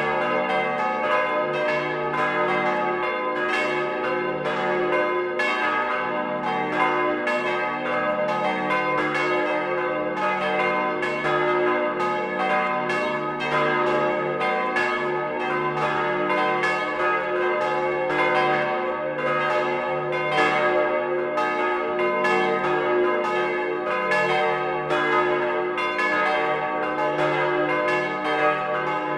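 Several swinging bronze church bells, cast in 1949 by Petit & Gebr. Edelbrock of Gescher, ringing together in a continuous peal, their clapper strokes overlapping several times a second. Heard close up inside the belfry, so the sound is loud and full.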